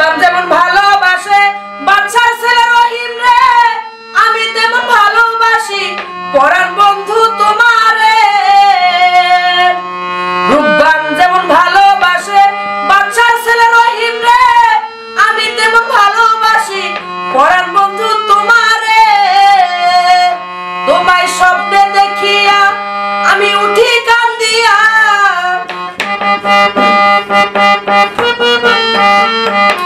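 A woman singing a Bengali folk song in long, bending lines over a harmonium's held drone and melody, with drum strokes keeping the beat.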